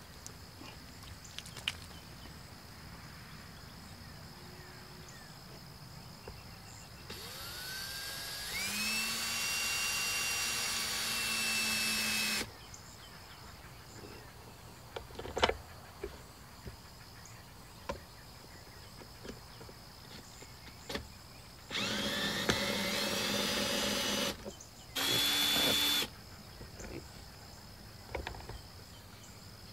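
Cordless drill driving screws into a plastic shelter. A long run of about five seconds winds up to a steady whine, and two shorter runs come later, the last one brief. A sharp knock about halfway through and a few lighter clicks fall between the runs.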